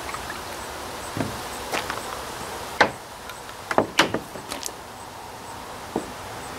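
Handling noise of a coolant jug and its sampling gear: a string of sharp clicks and knocks, the loudest about three seconds in and a quick cluster around four seconds.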